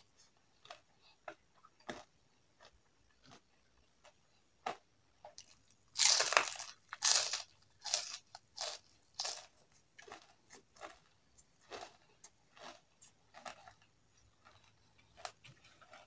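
Crisp food being bitten and chewed close to the microphone. A few faint mouth clicks come first, then a loud crunching bite about six seconds in, followed by steady crunchy chewing that gradually softens.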